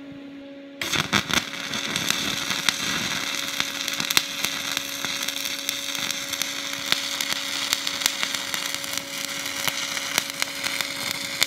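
Stick (shielded metal arc) welding: the arc strikes about a second in, then crackles and spits steadily with spatter popping as a fillet weld is run in the flat position. The rod is running a little hot at about 130 amps, which makes it spatter.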